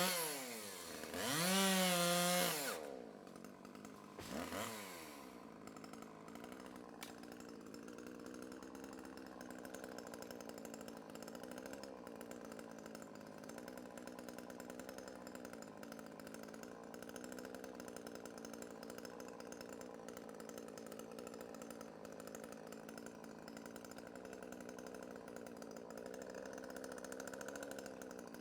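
Chainsaw revved high twice, its pitch rising and falling, then blipped once more briefly and left running at a steady idle.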